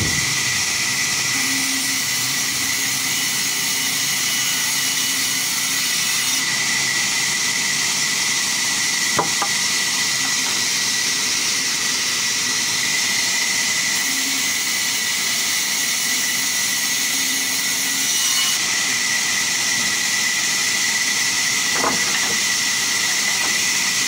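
Sawmill band saw running and ripping wooden planks into battens, a steady high-pitched whine and hiss. Two sharp knocks stand out, one near the middle and one near the end.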